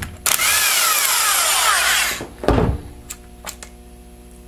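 Power drill with a socket spinning out the bolts of a Turbo 400 transmission's detent solenoid. The motor runs for about two seconds, its pitch rising and then falling. Then comes a low thump, followed by a few light clicks.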